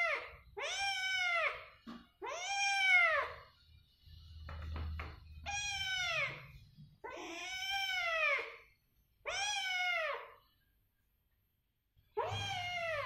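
Kittens meowing over and over. About seven high-pitched meows, each about a second long, rise and then fall in pitch, with short gaps between them.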